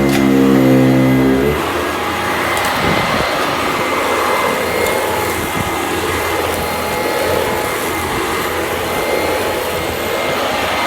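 Sanitaire SC899E commercial upright vacuum cleaner running. A steady pitched motor hum gives way about a second and a half in to a rougher, noisier sound with crackling, as grit is sucked up with a crunch.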